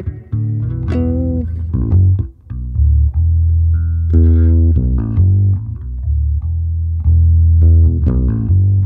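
Solo five-string electric bass played live: deep held low notes under plucked chords and higher melodic notes.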